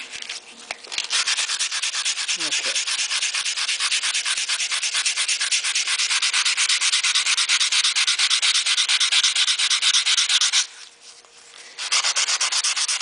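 150-grit sandpaper rubbed by hand in rapid back-and-forth strokes on stainless steel auto trim, sanding out file marks from a dent repair. The strokes stop for about a second near the end, then start again.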